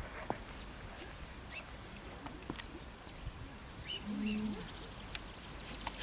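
Quiet open-air ambience with a low wind rumble, a few faint bird chirps and scattered small clicks. A brief low tone, with a second line above it, sounds about four seconds in.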